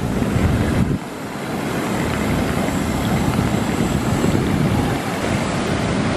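Jet airliner noise on an airport apron: a steady rush with a thin, high whine held throughout.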